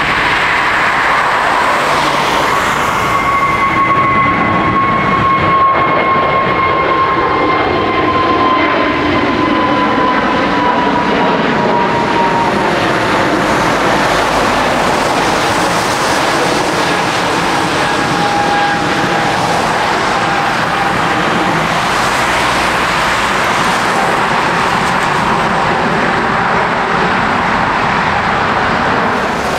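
Jet airliner's engines running loud and steady as the aircraft passes by, with whining tones that slowly fall in pitch.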